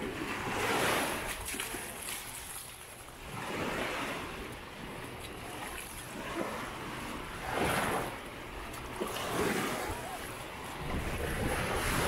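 Small sea waves breaking and washing up the beach, about five surges of rushing water that swell and fade every two to four seconds, with some wind buffeting the microphone near the end.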